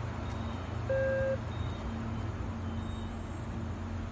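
Queensland Rail New Generation Rollingstock electric train standing at the platform with a steady low hum, and one short single-pitch beep about a second in.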